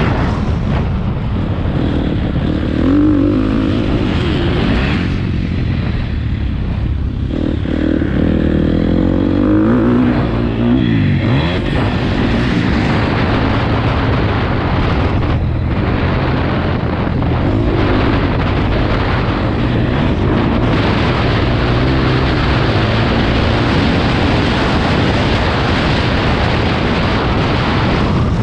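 Motocross bike engine being ridden hard around a dirt track, its pitch rising and falling over and over as the rider accelerates and backs off the throttle.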